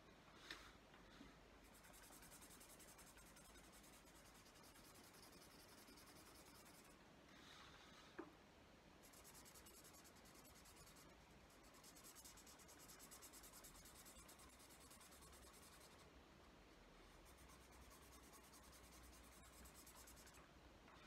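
Faint scratching of a pen colouring in on paper, rapid back-and-forth strokes in long runs with short pauses. Two small clicks, one about half a second in and a sharper one about eight seconds in.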